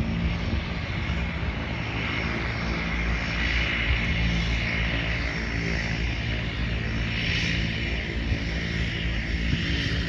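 Propeller airplane's engine running steadily.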